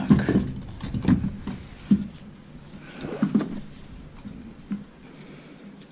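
A few dull knocks and clunks, about five spread over several seconds, as removed front suspension parts are handled and turned over.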